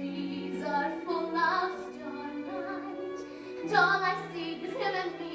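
A woman singing solo in a musical-theatre number, with a pit orchestra holding sustained notes beneath her voice; her line comes in about a second in.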